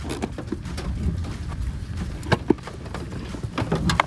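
Small sharp clicks and clinks of a battery-tray bolt being turned and pulled out by hand, a few scattered taps, over a low steady rumble.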